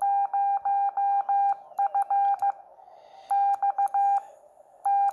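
Morse code sidetone from a transceiver: a steady beep near 800 Hz keyed on and off by a Bencher BY-1 iambic paddle. It sends part of the call sign M0FXB: five long dashes, then two groups of four beeps, and a fourth group starting near the end.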